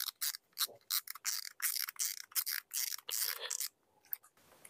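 Spinning fishing reel being handled as its spool is swapped: a run of quick, light clicks, about five a second, pausing briefly near the end.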